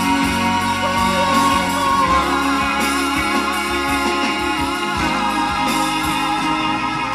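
Live reggae band playing an instrumental passage, a guitar carrying a wavering lead line over steady bass and drums.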